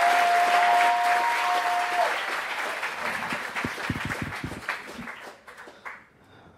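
Audience applauding, thinning to a few scattered claps and dying away about six seconds in.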